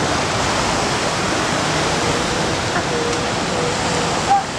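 Steady wash of surf, with faint drawn-out wavering calls of northern elephant seal pups from about halfway in and one short, louder cry near the end.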